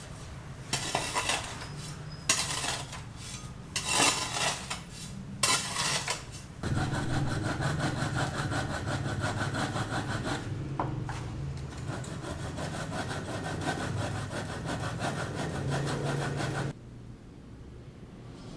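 Tool cutting or rasping at building material: four separate rasping strokes, then a steady rasping run of about ten seconds that cuts off suddenly.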